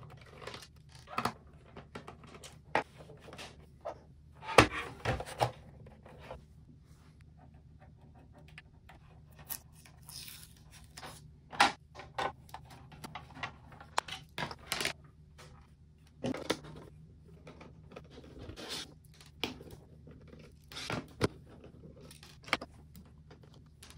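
Screwdriver and plastic pry tool working on the plastic housing of a TP-Link EAP660HD access point: scattered clicks, scrapes and small rattles of screws and plastic parts. Several louder knocks stand out, the loudest about four and a half seconds in.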